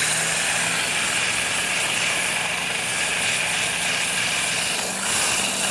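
Small electric motor of a rod-building lathe spinning a cork ring handle, with a sandpaper-wrapped sanding block held against the turning cork. A steady hum lies under a steady sanding hiss as coarse grit shapes the cork rings.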